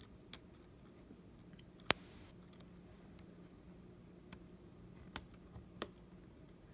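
A few scattered sharp clicks and light taps of small repair tools against a phone, the loudest about two seconds in, over a faint low hum.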